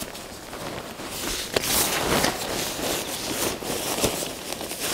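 Rustling and rubbing of a bivy bag's coated fabric shell as it is handled and pulled into place at the foot end, with a sharp click about a second and a half in.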